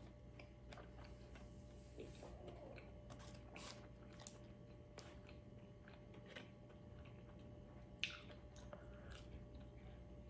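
Faint chewing and small wet mouth clicks of a person eating, with one sharper click about eight seconds in.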